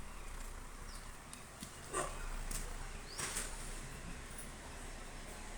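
Young Combai puppies, about four weeks old, giving a few faint, short squeaks and whimpers, about two seconds in and again after three seconds.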